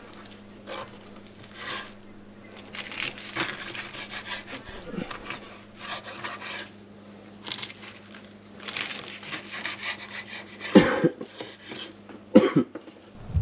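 A knife sawing back and forth through a crisp quesadilla on a cutting board, in a series of scratchy strokes, followed by two sharp knocks of the knife or board near the end.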